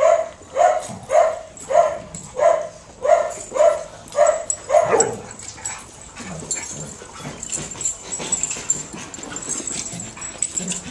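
A dog barking in play, about nine sharp barks at an even pace of roughly two a second, which stop about five seconds in. Quieter scuffling and clicking of the dogs moving about follows.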